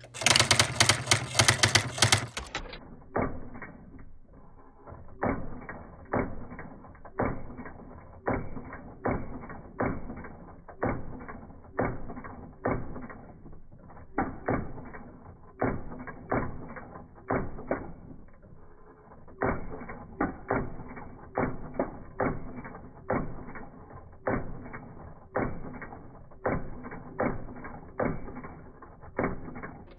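Panasonic T335 electronic typewriter printing with its thimble (cup) print wheel: a fast, loud run of strikes for about two seconds, then the same strikes slowed down, about one and a half a second with short pauses now and then.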